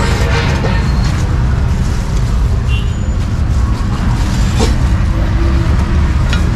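Steady low rumble of street traffic and running vehicle engines. A few sharp knocks cut through it, the first from a cleaver chopping on a wooden chopping board near the start.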